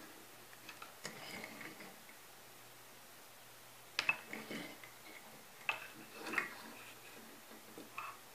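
Die-cast toy cars being picked up, turned and set down on a wooden tabletop: a few faint clicks and knocks with soft handling rustle, the sharpest knock about four seconds in.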